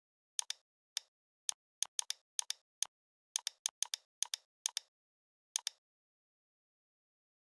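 Keystroke click sounds played by the Tickeys keyboard sound-effect app, one for each key pressed while typing and copying file names: sharp clicks in an irregular run, some single and some in quick pairs, with dead silence between them.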